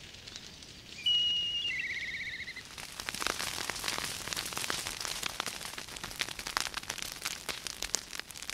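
Savannah bushfire crackling, a dense run of sharp pops and snaps starting about three seconds in. Before it, a bird gives one clear whistle that drops into a short, fast trill.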